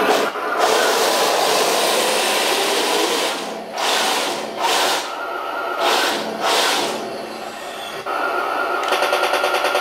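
Radio-controlled full-metal model tanks driving: electric drive motors and gearboxes whining and metal tracks clattering, swelling and dropping as they start and stop. Near the end a fast, even pulsing sets in.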